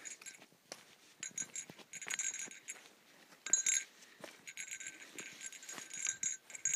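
Small metal bell tinkling on and off in clusters of jingles, with light clicks between.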